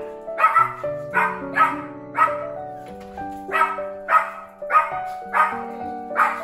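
Miniature schnauzer barking excitedly in quick sharp yips, about nine in a row roughly half a second apart, over background music with sustained notes.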